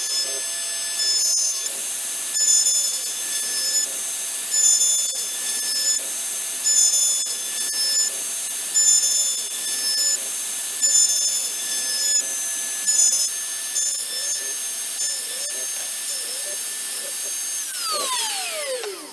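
Homemade CNC router's spindle running with a steady high whine while its end mill cuts into a wooden block, the cutting noise swelling about every two seconds. Near the end the spindle switches off and winds down in a falling whine.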